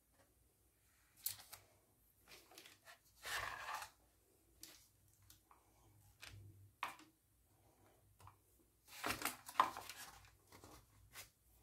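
Silicone spatula spreading and smoothing cake batter in a parchment-lined baking tray: faint, intermittent soft scrapes and paper rustles, with longer strokes about three seconds in and again around nine seconds.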